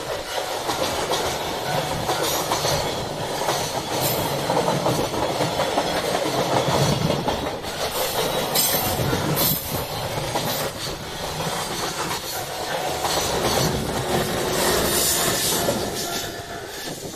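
Electric freight train climbing a steep grade with a banker locomotive pushing at the rear, its wagons rolling past with a steady clickety-clack of wheels over rail joints. The sound drops away in the last second or so as the train passes.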